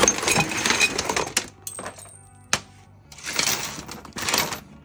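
Rattling and clinking of small metal tools and parts being handled, in three noisy bursts, with a single sharp click about two and a half seconds in.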